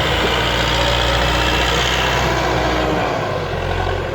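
Heavy diesel engine of earth-moving machinery running steadily. Its note changes and eases a little about three seconds in.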